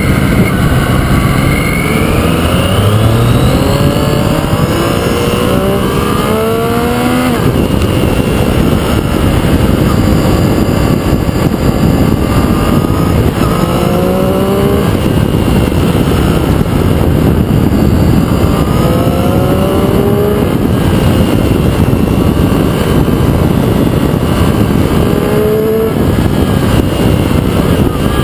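Triumph Street Triple RX's 675 cc inline three-cylinder engine running under way and rising in pitch several times as it accelerates, over a constant loud rush of wind on the bike-mounted camera.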